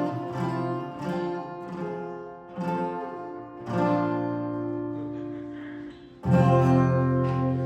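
Guitar playing the closing chords of a song: single strummed chords, each left to ring and die away, then a last strong chord about six seconds in, held to the end.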